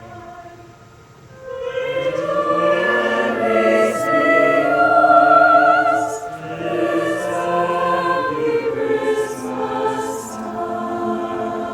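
High school choir singing in several parts: a soft held chord, then the voices swell louder about a second and a half in and move together through sustained, vibrato-laden notes.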